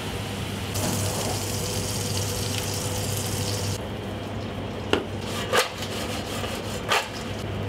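French fries frying in a deep fryer's basket, the oil hissing and sizzling, then the fried chips tossed in a stainless steel bowl with three sharp metal clatters near the end. A steady low hum runs underneath.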